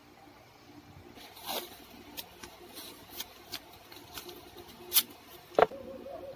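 Hands handling paper and a roll of washi tape on a journal page: light rustling and scratching broken by sharp clicks and ticks, the two loudest near the end.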